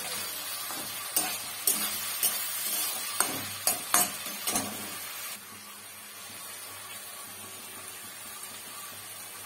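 Metal spatula scraping and knocking against a metal kadhai as chopped vegetables are stir-fried, about eight sharp knocks over the hiss of frying. The knocks stop a little past halfway, leaving a softer, steady hiss.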